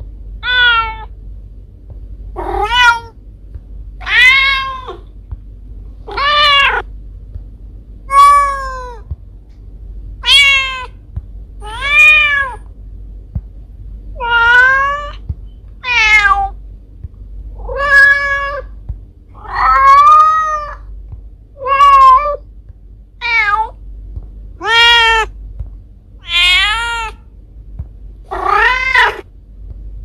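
Mother cat meowing over and over to call her kittens, about sixteen calls roughly every two seconds. Each meow rises and then falls in pitch.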